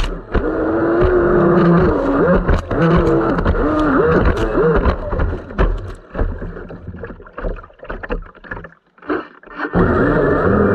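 Electric brushless motor of a Pro-Boat Blackjack 29 RC catamaran whining as the throttle is worked, its pitch stepping and gliding up and down, with water slapping and spraying against the hull in rough chop. About halfway through the motor sound fades almost away for a few seconds, then comes back loud near the end.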